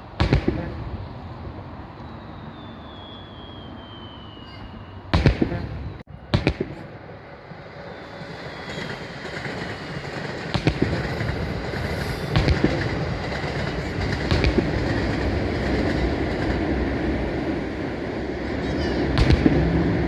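Aerial fireworks shells bursting: a few separate loud bangs in the first seven seconds, then from about eight seconds a dense barrage of bursts and crackling over a continuous rumble.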